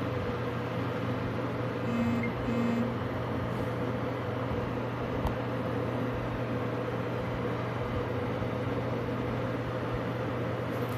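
A steady mechanical hum, with two short buzzy tones about two seconds in and a single click a little past the middle.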